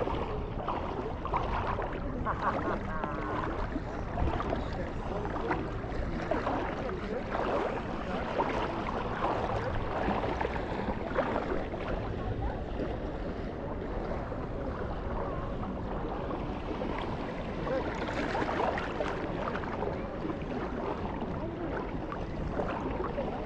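Busy beach ambience: many people's voices mingling, none clearly in front, over a steady rushing noise of surf and wind.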